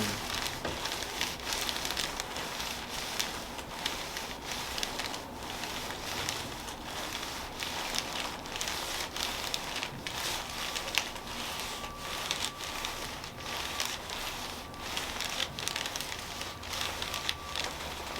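Soft, irregular rustling and crinkling, several light sounds a second, from hands-on handling during a chiropractic treatment.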